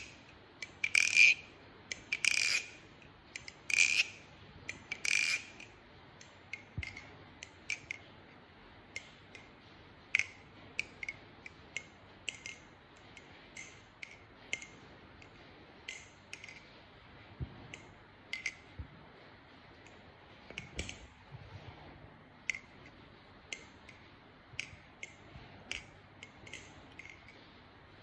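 Butterfly knife (balisong), a Bowie Kraken clone, being flipped, its handles clacking shut and swinging on the pivots. About five loud clacks a little over a second apart open the run, followed by a steady patter of lighter, irregular clicks.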